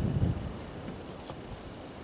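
Low rumble of wind on the microphone that dies down after about half a second, leaving a faint steady outdoor background with one light tap in the middle.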